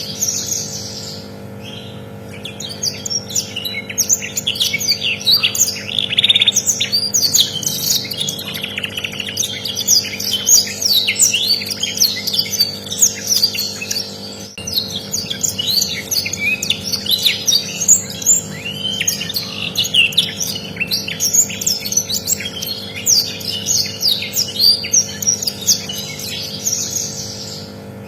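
Canary singing a long, fast, continuous song of rapid chirps and trills, with brief lulls near the start and near the end, over a faint steady hum.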